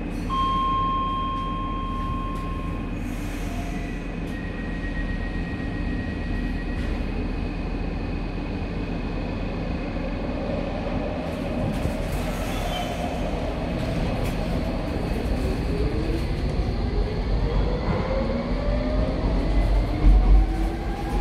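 Interior of a Docklands Light Railway B07 train standing, then pulling away, with a steady electronic tone for a couple of seconds at the start. From about 15 seconds in, the electric traction motors rise in pitch as the train accelerates, with a low rumble building near the end.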